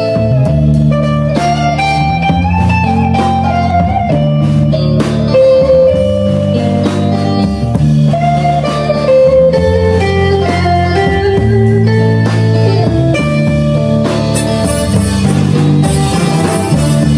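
Instrumental music with a guitar melody over a steady bass line.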